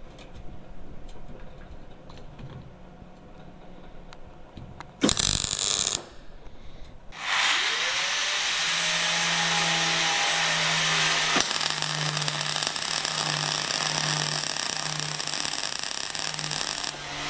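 MIG welder welding steel braces to a chequer-plate steel lid. A short burst of arc comes about five seconds in, and from about seven seconds a long weld runs as a steady sizzle.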